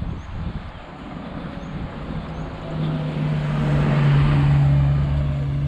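A van's engine running close by, with a steady low hum that grows louder about halfway in and stays loud.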